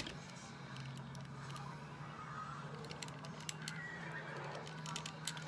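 Plastic Transformers figure parts being handled and fitted together, giving a scatter of small sharp clicks and snaps, a sharp one right at the start, over a steady low hum.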